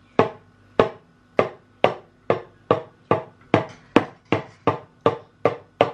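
The point of a long, thin kitchen blade stabbed again and again onto a countertop between a spread hand's fingers, the knife-finger game: about fourteen sharp knocks, each with a short ring, coming slowly faster from under two to nearly three a second.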